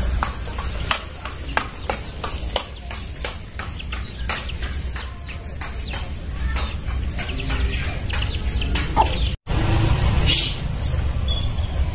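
White-rumped shama (murai batu) calling in the forest: a rapid string of short, sharp chips and whistled notes over a steady low rumble. The sound cuts out for an instant about nine seconds in, and a louder call follows.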